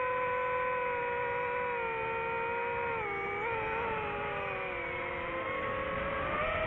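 DJI FPV quadcopter's motors and propellers whining steadily, the pitch easing down, dipping briefly about halfway and rising again near the end as the throttle changes.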